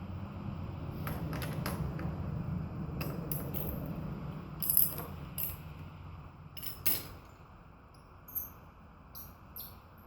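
Metal clicks and clinks of a wrench working the front brake caliper bolts on a motorcycle, irregular and spaced out, the loudest near the middle. A low rumbling handling noise runs under the first half and fades.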